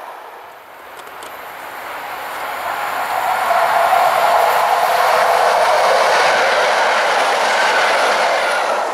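EN57AL electric multiple unit approaching and passing at speed: its running and wheel-on-rail noise grows louder from about a second in and stays loud as the cars go by close, from about four seconds in.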